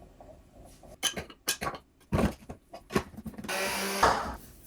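Ground salt being emptied from a coffee grinder into a frying pan: a few sharp knocks and taps, then a short scraping rush of salt about three and a half seconds in.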